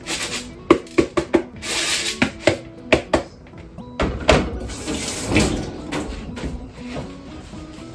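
Kitchen tap running into a sink in short spurts, broken by sharp knocks and clinks of a pot or bowl being handled under it.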